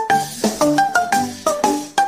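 Background music: a bouncy tune of quick, short notes that each strike and fade, about four or five a second, over a low bass line.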